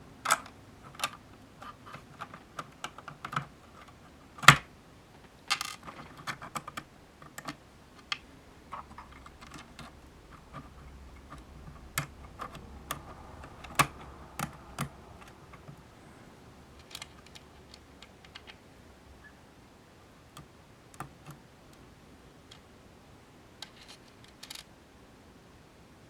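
Irregular clicks and taps of small hard parts being handled and fitted: acrylic case sheets, nuts and screws. One sharper knock comes about four and a half seconds in, and the clicks thin out in the second half.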